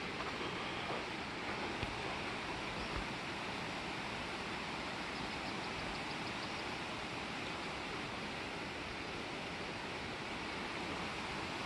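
River water flowing with a steady, even noise.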